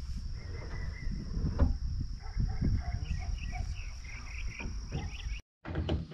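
A steady high insect drone, like crickets, under a low rumble and a few short bird chirps. The sound drops out briefly near the end.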